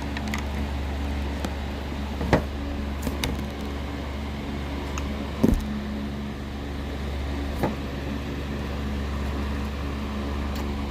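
A steady low hum, like a fan or appliance running, with a few short sharp knocks or clicks, the loudest about two seconds in and about halfway through.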